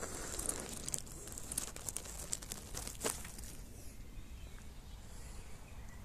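Close rustling and crackling of grass and leaves against the phone's microphone, dense in the first few seconds with one sharp click about three seconds in, then easing off. Underneath runs a low steady rumble of wind on the microphone.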